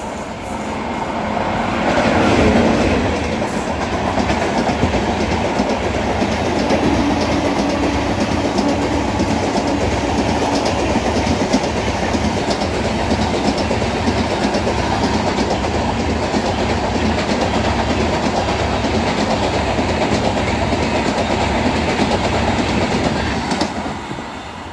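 Tejas Rajdhani Express coaches passing by, their wheels clattering rhythmically over the rail joints. The noise builds over the first couple of seconds and falls away near the end as the last coach goes by.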